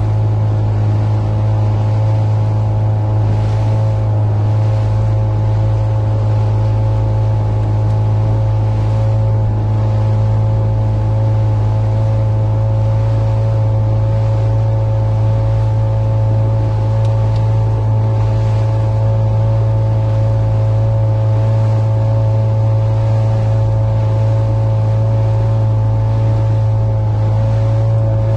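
Motorboat engine running at a steady speed, a loud, even drone that holds its pitch throughout.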